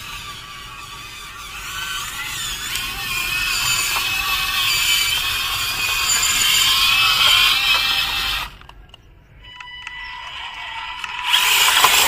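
Small electric drive motor and gearbox of an RC scale Jeep whining as it tows a loaded trailer, with a gear rattle and a pitch that wavers with the throttle. It grows louder over several seconds and cuts off suddenly about eight seconds in, then starts again near the end after a short lull.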